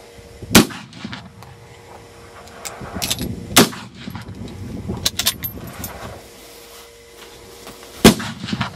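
Rifle shots from a prone firing line of classic service rifles firing sighting rounds: three loud cracks, about half a second in, about three and a half seconds in and near the end, each with a short echo, and a few quieter cracks in between.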